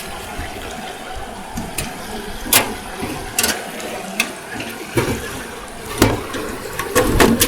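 Sharp clicks and knocks from the toolbox sluice's gate being handled and opened, several in a row with a cluster near the end, over a steady rushing background.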